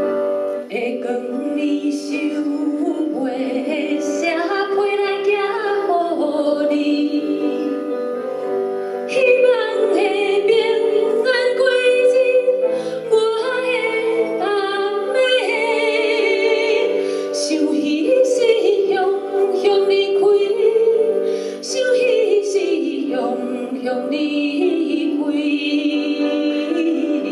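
Two women singing a Taiwanese song as a vocal duet over steady instrumental accompaniment.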